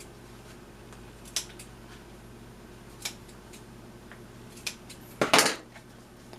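Scissors snipping: single sharp cuts every second or two, then a louder, longer cut near the end.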